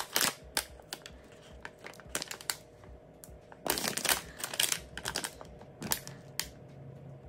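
Plastic frozen-food bag crinkling and crackling in irregular bursts as it is handled and turned over, busiest about four seconds in.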